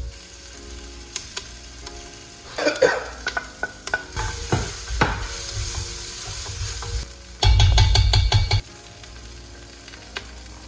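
Sliced onions sizzling in oil in a nonstick pot while a wooden spoon stirs and scrapes them around. About seven and a half seconds in comes a loud second of rapid stirring and knocking against the pot.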